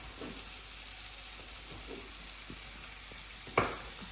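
Food sizzling steadily as it fries in a pan on the stove, with a few light taps and one sharp knock about three and a half seconds in.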